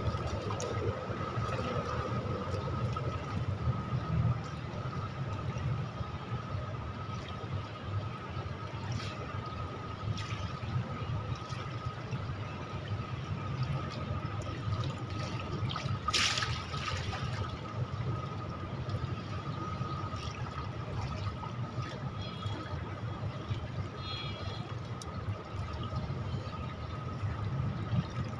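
Swimming-pool water sloshing and trickling at the pool edge as a swimmer moves through it, over a steady high thin tone, with one brief louder rush about halfway through.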